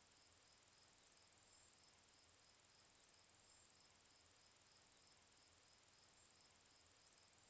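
Faint, steady high-pitched insect trill, with a fainter, lower pulsing call beneath it.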